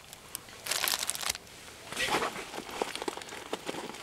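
A plastic-wrapped Mylar emergency blanket crinkling as it is handled and put down on a pile of bagged gear. There are two bursts of crinkling, about a second in and about two seconds in, followed by lighter rustling and small clicks.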